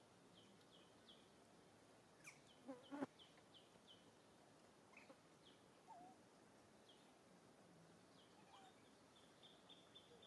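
Near silence: a faint high chirp repeating about three times a second, which stops for several seconds in the middle and then resumes. A soft click comes about three seconds in.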